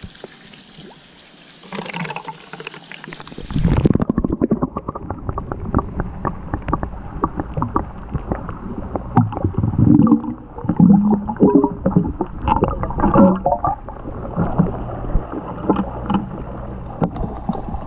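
Pool water splashing as a pool light fixture is lowered in, then, about four seconds in, everything turns muffled as it is heard from underwater: many small clicks of bubbles and low knocks from the light being handled. The bubbles are air escaping from under the fixture after it was tipped over.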